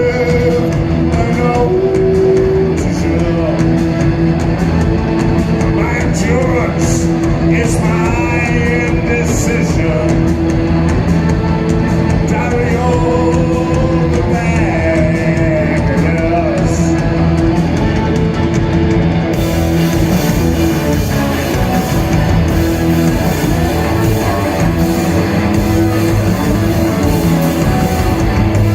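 Rock music with guitar and a singing voice, loud and steady; the singing line is plainest in the first half.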